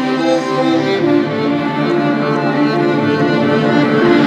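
Background music on bowed strings, a string melody moving from one held note to the next.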